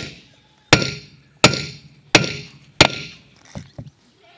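Hammer blows on a John Deere tractor's front wheel hub, driving a new oil seal into its seat: four hard strikes about two-thirds of a second apart, each with a short ring, then two lighter taps near the end.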